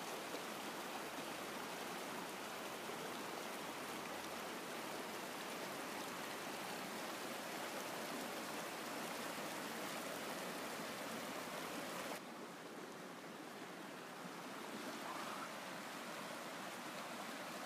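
Shallow, rocky hill river rushing over stones: a steady rushing hiss that turns a little quieter and softer about twelve seconds in.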